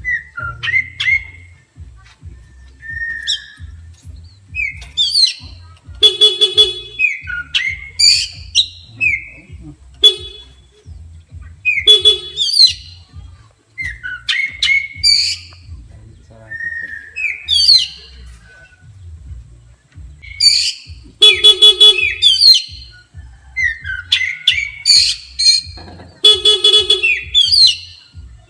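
Oriental magpie-robin singing loud, agitated phrases of whistles and rising and falling notes without pause. Its song runs between four or five short buzzy horn blasts, the honking that provokes it.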